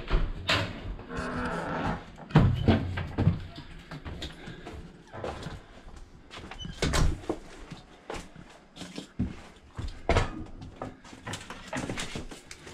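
A door pushed open by hand, with a short creak about a second in, followed by irregular knocks and clicks of handling and movement in a small room.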